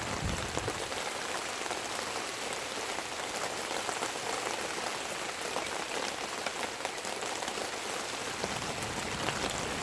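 Heavy rain coming down steadily: a continuous hiss of rainfall with many individual drops ticking on surfaces.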